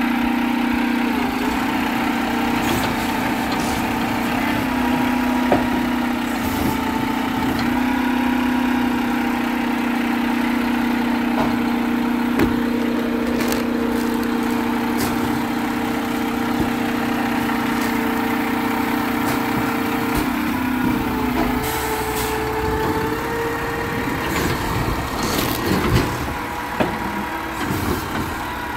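Garbage truck running with a loud, steady drone that cuts out about two-thirds of the way through, followed by a few sharp knocks and clatter near the end.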